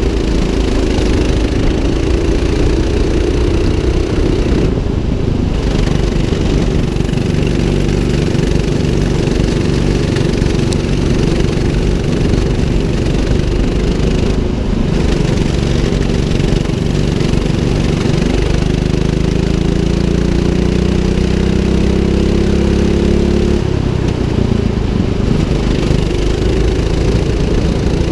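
200cc go-kart engine running under throttle, heard from the driver's seat. Its pitch wavers through the corners, climbs steadily for about five seconds past the middle, then drops suddenly as the throttle is lifted.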